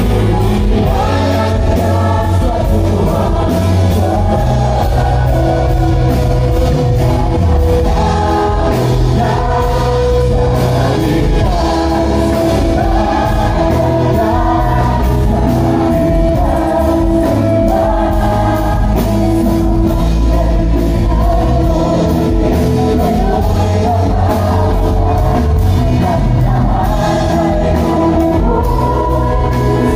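Worship music: singers holding long notes over a band with a steady beat and heavy bass.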